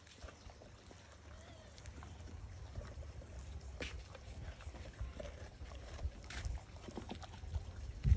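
Cane corso gnawing and chewing on raw meat and bone, giving scattered crunches and clicks, two of them louder, over a steady low rumble.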